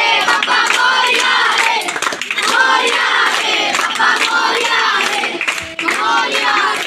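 A crowd of boys chanting a devotional Ganesh chant together, loud and continuous, with steady clapping along to the beat.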